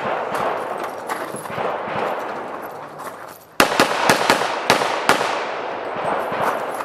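Handgun firing a quick string of about six shots, starting about three and a half seconds in and lasting about a second and a half, over a steady background hiss.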